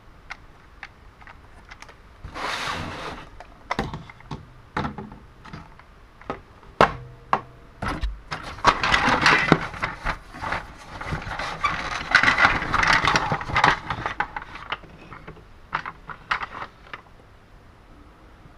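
Hard plastic toy track tiles and a plastic tray clicking and clattering against each other, with cardboard scraping, as they are handled and lifted out of a cardboard box. The knocks come singly at first, then run into a long stretch of rattling clatter.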